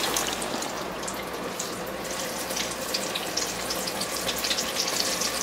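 Flour-coated chicken deep-frying in a pot of hot oil: a steady sizzle full of small crackles.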